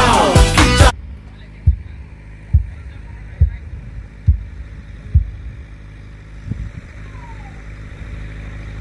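Loud dangdut koplo music through a large sound system cuts off suddenly about a second in. It is followed by a run of single deep bass thumps, most just under a second apart, over a steady low rumble.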